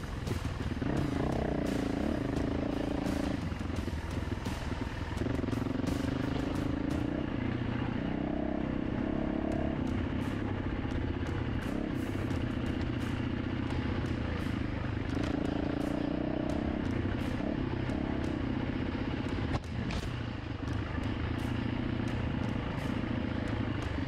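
Dirt bike engine running hard on a trail ride, its note rising and falling every few seconds with throttle and gear changes. Scattered clicks and knocks run alongside it.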